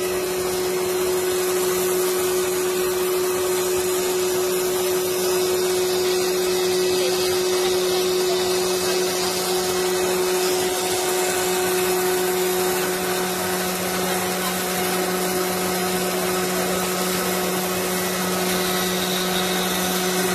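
DigiCam CNC router spindle running steadily at high speed as it cuts printed sign material, giving a constant whine over the steady hiss of its dust-extraction vacuum.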